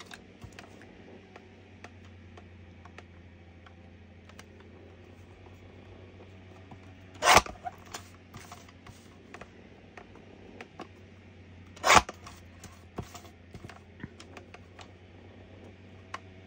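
Paper trimmer slicing through card twice, each a short, sharp, loud slice, about four and a half seconds apart, with small handling clicks in between.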